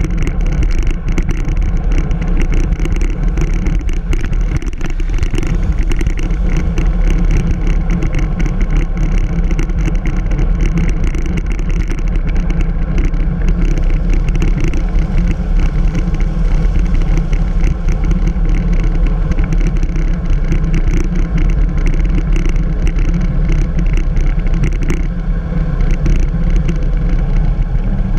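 Road bicycle ridden at speed on a paved lane, heard through a handlebar-mounted GoPro: a steady, loud rumble of road vibration and air noise, with many small knocks and rattles.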